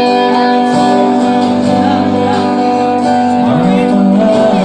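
Live rock band playing, with acoustic and electric guitars, bass and drums, and a man singing.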